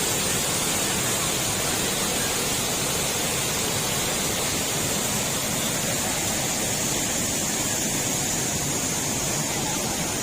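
Waterfall pouring: a steady rushing of falling water with no change in level.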